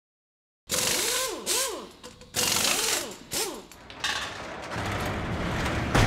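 Produced intro sound effects: bursts of mechanical rattling with whines that rise and fall in pitch, then a low rumble that builds to a heavy hit about six seconds in.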